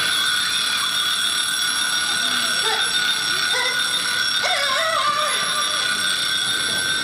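Stopwatch timer alarm sound effect going off: a loud, steady, high-pitched electronic ring that holds one unchanging tone, with faint voices beneath it.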